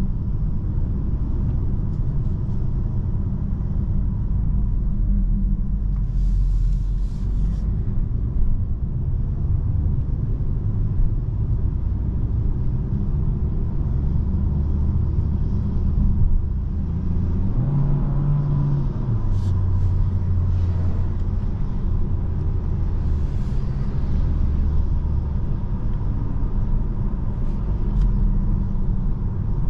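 Steady low rumble of a 2022 DS 4 E-Tense 225 plug-in hybrid on the move, heard from inside the cabin. A short hiss comes about six seconds in, and the low hum rises in pitch briefly near two-thirds of the way through.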